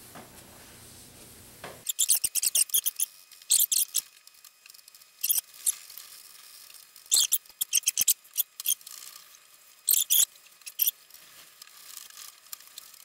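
A rag under a gloved hand rubbing over a lacquered table top coated with carnauba paste wax. From about two seconds in it squeaks in short, high clusters as the cloth drags on the waxed surface.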